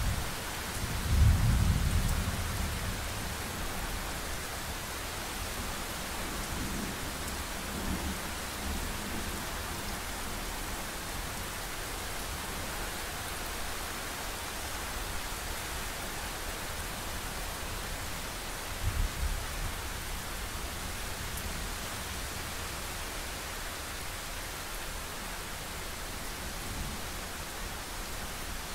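Thunderstorm: steady rain hiss under rolling thunder. A loud low thunder rumble comes about a second in and fades over a couple of seconds. Fainter rumbles follow a few seconds later, and a short, pulsing rumble comes about two-thirds of the way through.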